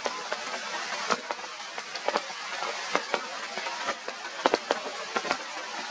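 Steady heavy rain, with irregular sharp taps of drops striking nearby surfaces.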